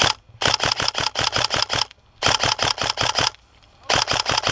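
Tokyo Marui Scar-L Next Gen electric airsoft rifle firing full-auto in three bursts of about eight shots a second, each shot a sharp mechanical clack.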